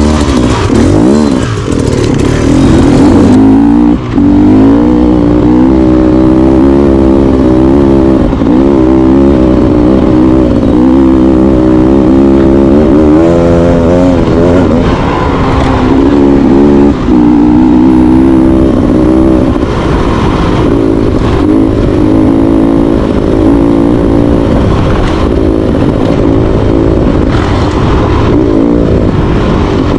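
Beta Xtrainer two-stroke dirt bike engine running hard on a trail ride, its pitch rising and falling over and over as the throttle is opened and rolled off.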